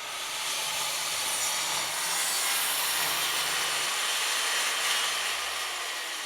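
Circular saw cutting lengthwise through a pine board along a straight-edge guide, a loud steady rasping of the blade in the wood. A lower hum under it drops away about four seconds in while the cutting noise carries on.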